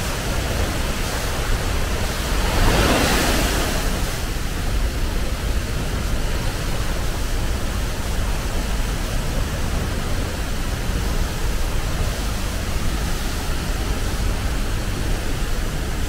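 Steady rushing roar of a tall waterfall plunging into its pool, with a brief louder swell about three seconds in.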